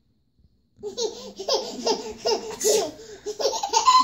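High-pitched laughter in short repeated bursts, starting about a second in after a brief silence.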